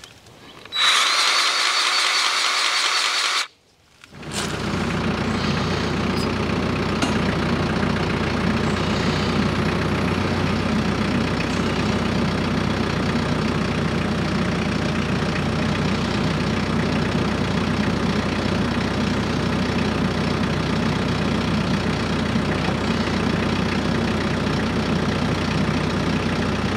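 A powered grease gun whirring for about three seconds while greasing the auger's pivot fitting; then, after a cut, a TYM compact tractor's diesel engine running steadily.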